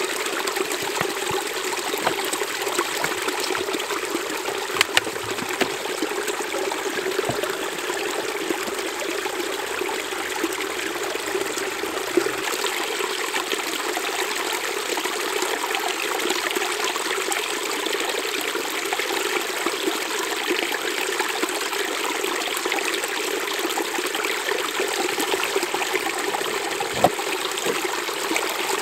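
Small rocky stream trickling and splashing over stones, a steady running-water sound, with a few brief knocks.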